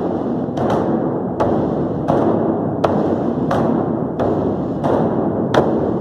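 Large Chinese barrel drums beaten with wooden sticks by a group of drummers in a steady beat, about three strokes every two seconds. Each boom rings on into the next.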